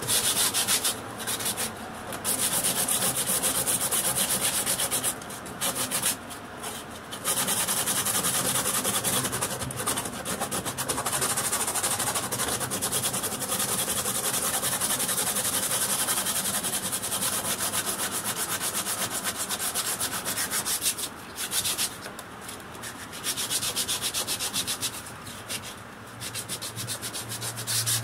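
Fibreglass being sanded: a steady hissing rub in long runs, broken by a few short pauses.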